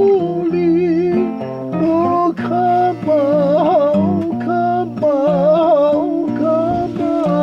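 A hymn sung with vibrato over steady instrumental accompaniment, the voice holding long notes.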